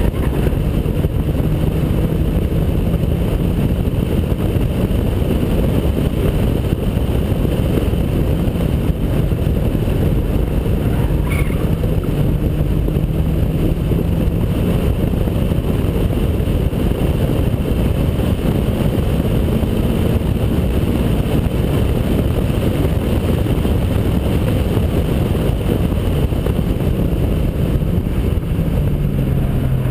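2003 Honda Accord Type S's 2.4-litre four-cylinder engine and custom duplex exhaust driven hard on track, heard from a camera on the outside of the car under heavy wind rush. The engine note wanders and drops near the end.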